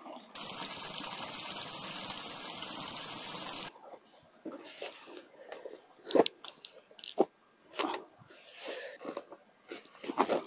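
A small stream runs with a steady rush for about three and a half seconds, then cuts off. It is followed by scattered crinkling and rustling of plastic sheeting and dry leaves as a camp tarp is taken down and packed.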